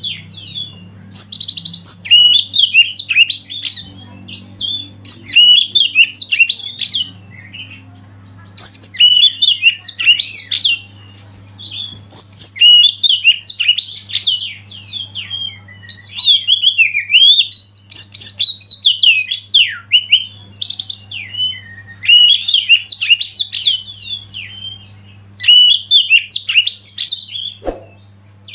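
Oriental magpie-robin (kacer) singing: loud, varied whistled phrases a second or two long, repeated with short pauses, over a low steady hum.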